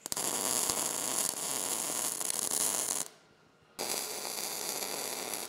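MIG welding arc crackling steadily as a bead is laid on steel. It stops for under a second about three seconds in, then starts again.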